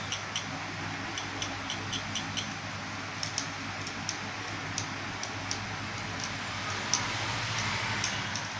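Light, irregular clicks and ticks from a hand-held box vape mod with a rebuildable atomizer being handled, over a steady background hiss and a low hum.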